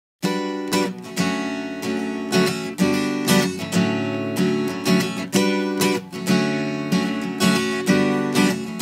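Song intro on the soundtrack: an acoustic guitar strumming a steady rhythm, starting suddenly just after the beginning.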